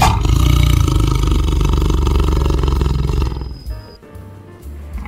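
Tiger roaring, a loud rough call that starts suddenly and dies away a little over three seconds in, over background music.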